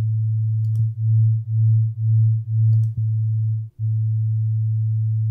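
A steady 110 Hz sine tone. About a second in, a 112 Hz sine tone is added and the two beat: the volume goes loud and quiet about twice a second for about two seconds. Then the second tone is switched off and the single tone runs steady again, with a faint click at each switch and a brief dropout near the end.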